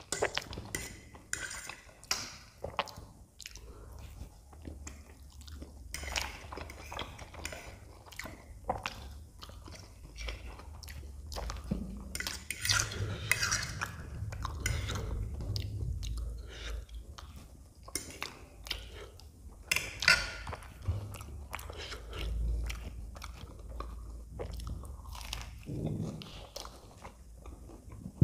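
Close-miked chewing of Maggi instant noodles and peas in irregular wet crackles, with short clicks of a fork against the plate as the last bits are gathered.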